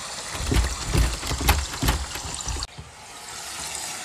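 A uPVC front door being unlatched and pushed open: a few short thumps and clicks in the first two seconds, over a steady hiss that drops away suddenly about two and a half seconds in.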